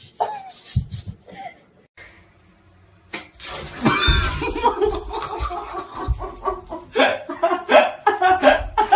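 Young men laughing loudly and hard in repeated bursts, starting about three seconds in.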